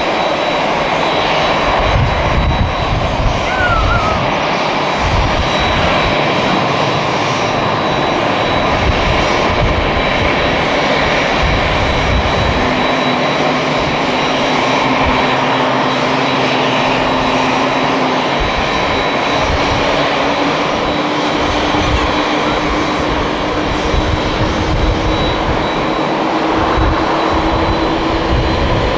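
Airliner jet engines whining steadily on an airport apron, with a low tone that comes in about halfway through and rises slowly toward the end. Gusts of wind rumble on the microphone.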